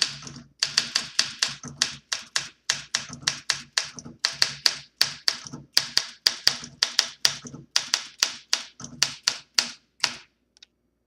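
1966 Olympia SM9 DeLuxe manual typewriter being typed on: a quick run of sharp key and typebar strikes, about four to five a second, that stops about ten seconds in.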